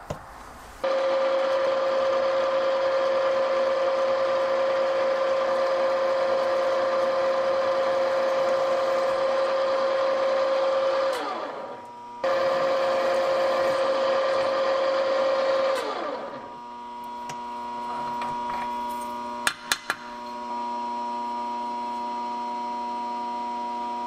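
Benchtop drill press running steadily while a twist bit drills a new hole through a metal linkage lever. The motor spins down with a falling pitch about 11 seconds in, starts again, and spins down once more around 16 seconds. A couple of sharp clicks follow near 20 seconds, then a quieter steady hum at a different pitch.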